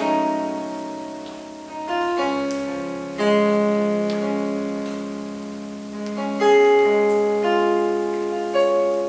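Slow piano music: sustained chords struck a few seconds apart, each left to ring and fade.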